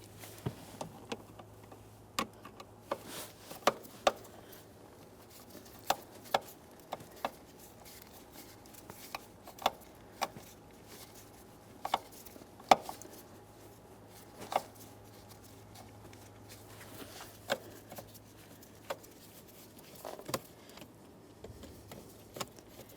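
Phillips head screwdriver working the screws out of a plastic steering column cover: scattered sharp clicks and ticks of metal on screw and plastic at irregular intervals, over a faint steady hum.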